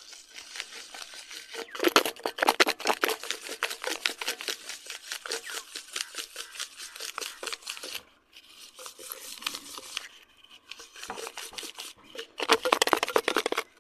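Black powder ingredients (potassium nitrate, sulfur and charcoal powder) being shaken hard inside a closed metal tin to mix them, a rapid rasping shuffle with a few brief pauses.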